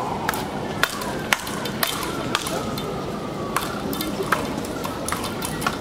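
Speedball rackets hitting the ball tethered to the pole in a fast rally: sharp, irregular knocks about two a second.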